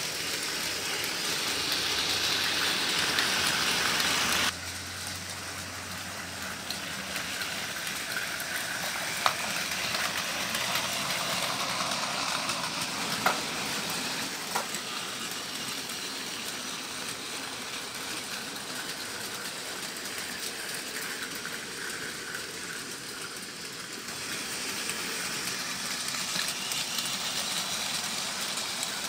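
Battery-powered Plarail Merlin toy train running on plastic track: a steady whirring motor and wheel rattle, with a few sharp clicks. It is louder at first and drops suddenly about four seconds in.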